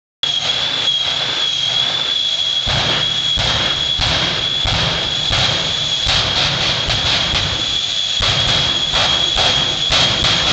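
Jet-powered drag truck's turbine engines running while it is stationary, with a steady high whine. Rough surges repeat every half second to a second as the afterburners are pulsed, shooting flame from the stacks. A heavier low rumble joins about three seconds in.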